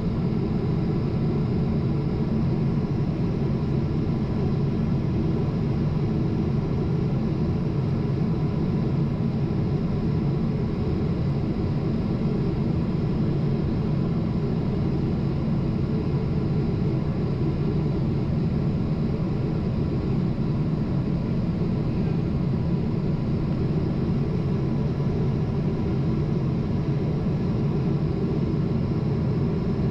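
Steady engine and airflow rumble of a Boeing 777-300 on approach, heard inside the cabin beside the wing engine: a low, even roar with a few faint steady tones above it.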